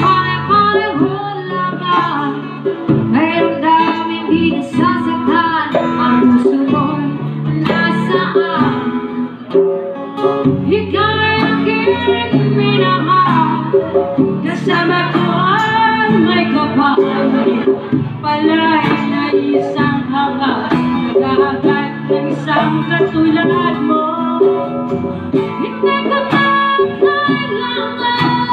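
Live acoustic band music: a woman singing over a strummed acoustic guitar, with a hand drum keeping the beat.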